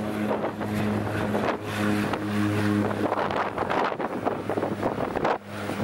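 A de Havilland Canada DHC-6 Twin Otter's turboprop engines running as it rolls along the runway: a steady, low propeller hum, with wind buffeting the microphone.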